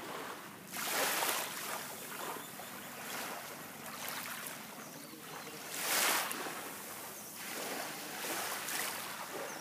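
Small waves lapping and washing onto a sandy shore, a soft hiss that swells and fades, loudest about a second in and again about six seconds in.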